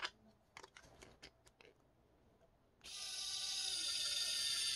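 XCOOL mini electric precision screwdriver spinning a tiny drill bit, its small motor starting about three seconds in with a steady high-pitched whine. A few faint handling clicks come before it.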